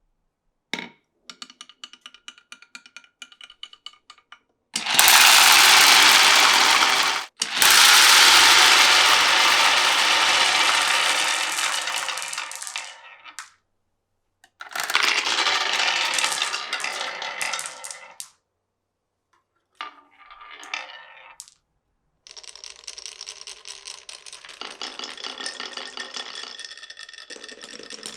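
Marbles rolling and clattering through a wooden and plastic marble run. A run of light clicks comes first, then two long loud rolling rushes, then a dense rapid clatter toward the end.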